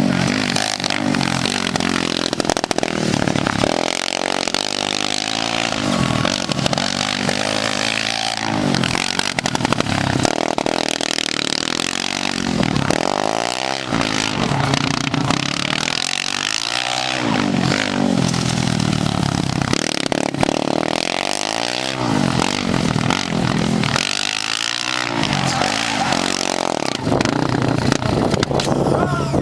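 Formula Student race car engine revving hard and easing off again and again as the car is driven around the cones, its pitch rising and falling every couple of seconds.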